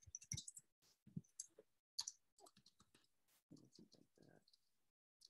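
Faint, irregular clicks of computer-keyboard keystrokes while typing.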